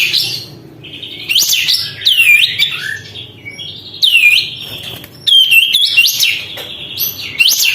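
Kapas tembak bulbul singing in loud bursts of whistled phrases, about five in all, each note swooping down and then sharply back up.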